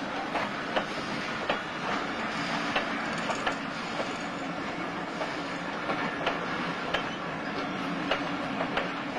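Passenger coaches of a steam-hauled train rolling past, a steady rumble with wheels clicking and knocking irregularly over the rail joints.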